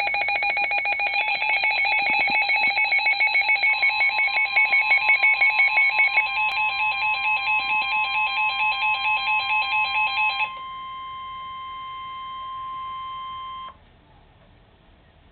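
Weather alert radio sounding its rapid trilling electronic alarm for a severe thunderstorm warning, with the NOAA Weather Radio 1050 Hz warning tone joining about four seconds in as a steady beep. The trilling alarm cuts off about ten seconds in, and the steady tone stops about three seconds later, leaving a faint hiss.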